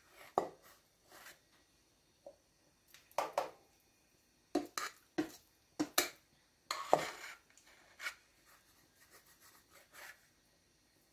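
Metal spoon scraping and clinking against a stainless steel mixing bowl while scooping soft dumpling dough, in irregular short strokes, the loudest scrape about seven seconds in.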